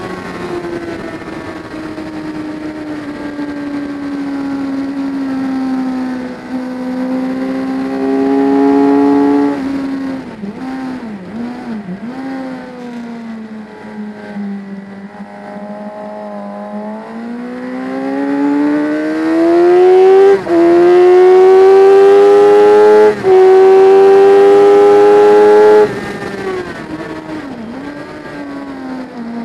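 Onboard sound of a motorcycle engine on a racetrack, with wind rush. The engine runs off and on the throttle through the corners, then accelerates hard with two quick upshifts about 20 and 23 seconds in, loudest there, before the throttle closes near the end.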